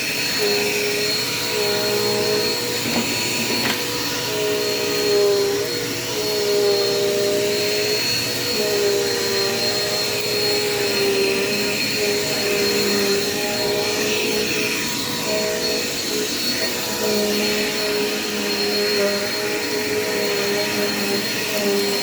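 Dirt Devil Quick Power upright vacuum cleaner running while vacuuming the floor, a steady motor whine that wavers slightly in pitch. Its brush roll turns on a freshly fitted Style 5 belt, replacing a stretched-out one that made it run bumpy.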